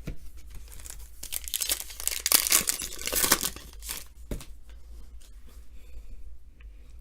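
Foil trading-card pack wrapper being torn open and crinkled, with a dense crackling burst lasting about three seconds in the middle and lighter rustling around it.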